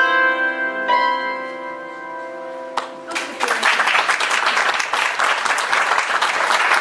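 Hammered dulcimer's closing notes, struck twice near the start and left ringing as they fade, ending the piece; about three seconds in, audience applause breaks out and continues.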